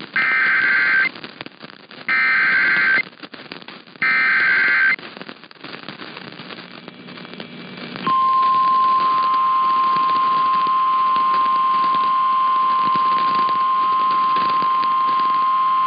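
Emergency Alert System SAME header: three one-second bursts of buzzy digital data tones, about a second apart. About halfway through, the NOAA Weather Radio 1050 Hz warning alarm tone starts and holds steady, announcing a flash flood warning.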